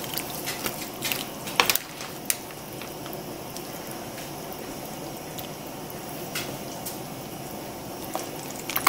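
A wooden spoon stirring thick chicken and sausage gumbo with sliced okra in a metal pot: a steady wet sloshing of the liquid, with a few light knocks, the clearest about one and a half and two seconds in.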